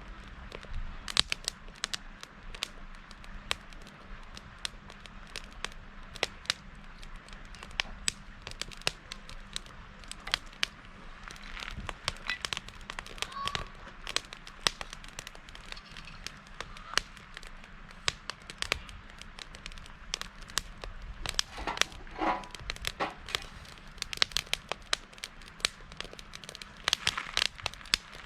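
Wood campfire burning, crackling with many irregular sharp pops.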